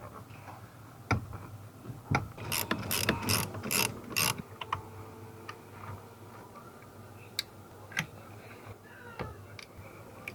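Ratchet wrench clicking as fasteners are done up while a steering column is refitted: a couple of single clicks, then five quick strong ones between about two and four seconds in, then a few scattered fainter clicks.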